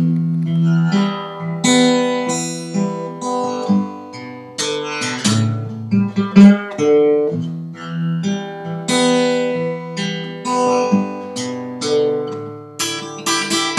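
Acoustic guitar music: picked notes and strummed chords, each ringing out and fading.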